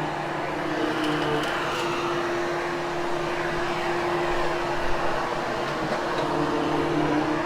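Hoover HushTone upright vacuum cleaner running steadily over carpet. Its motor hum shifts to a different pitch about two seconds in and shifts back near the end.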